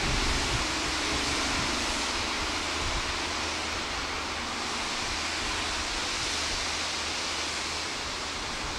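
Network Rail multi-purpose vehicle running away along the track: a steady hiss over a low engine rumble, slowly fading.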